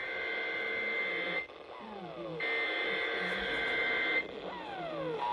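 Emergency Alert System SAME header tones received over broadcast radio: two buzzy digital data bursts of about two seconds each, with a short falling tone in each gap between them.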